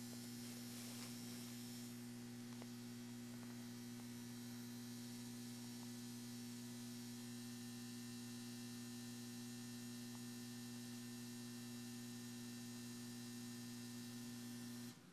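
Steady low electrical mains hum over a faint hiss, which cuts off abruptly near the end.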